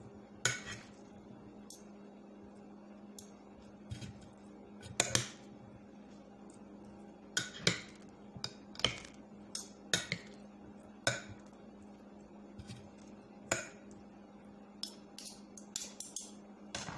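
Metal spoon and fork clinking and scraping against a glass dish while tossing a chopped salad: irregular clinks, one or two a second, some louder than others.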